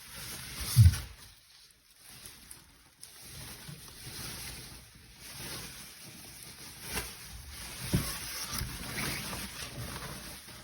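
Rustling and handling noise from unpacking a bass guitar, with a few dull thumps, the loudest about a second in and another near eight seconds in.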